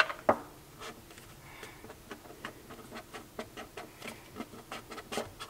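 Fingers handling a rigid cardboard two-piece tarot deck box and easing off its snug-fitting lid: two sharp knocks at the start, then a run of small irregular ticks and scrapes of fingers on cardboard.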